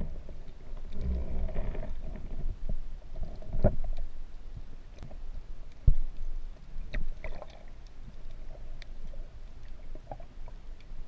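Muffled water movement with a low rumble, broken by sharp knocks near the start, at about four seconds and about six seconds, and scattered faint clicks.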